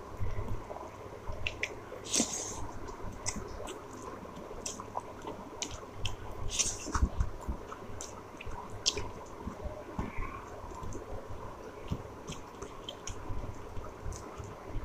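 A person chewing a mouthful of rice and curry, wet squishing mouth sounds with scattered small clicks and a few sharper smacks.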